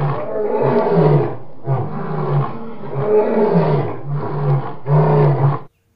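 Lion roaring: a run of roars, each about a second long, that cuts off suddenly near the end.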